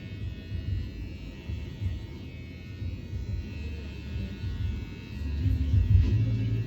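Wahl electric hair clipper running steadily as it cuts hair over a comb, with background music.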